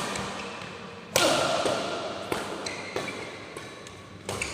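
A ball being struck in a game: a loud sharp knock with a short ringing tail a little over a second in, then several smaller knocks.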